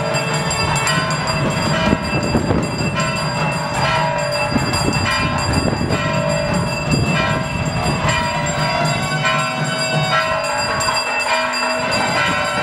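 Temple festival music: wind instruments holding long, steady notes over irregular drumming.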